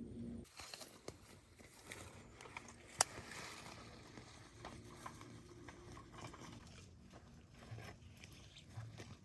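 Scattered light clicks and knocks, with one sharp click about three seconds in. A steady low hum cuts off about half a second in.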